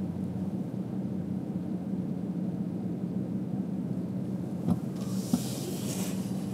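Steady low rumble of a car being driven, with two short knocks about half a second apart a little before the end, followed by a brief hiss lasting about a second.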